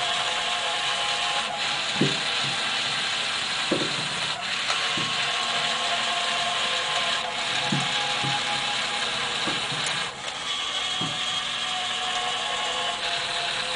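Gear-motor drives of Gemmy animated floating Grim Reaper props grinding and ratcheting steadily as they raise and lower the figures, with short low knocks every second or two.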